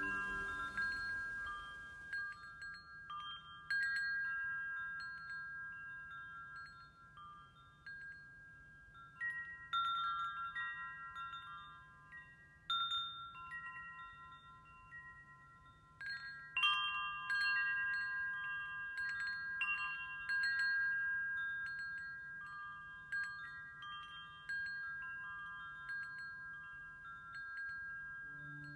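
Metal tubular wind chime ringing. Irregular strikes come in loose clusters, several notes sounding together and slowly fading between them. A faint steady low hum lies underneath.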